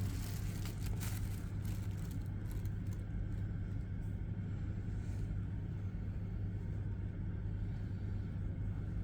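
A steady low hum, with a few faint soft taps or rustles in the first second.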